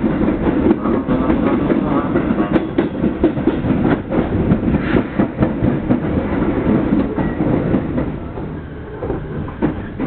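Electric commuter train passing close alongside the train being ridden: a loud rumble with rapid clicking of wheels over rail joints, dropping off about eight seconds in as it clears, leaving the quieter running of the train itself.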